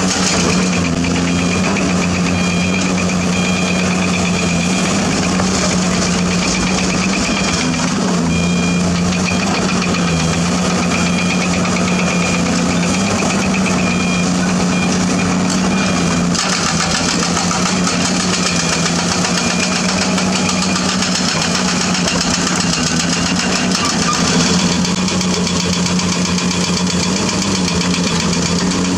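Diesel engine of a Zoomlion ZE490EK-10 ripper excavator running steadily under working load while it rips limestone. A repeating high beep sounds through roughly the first half.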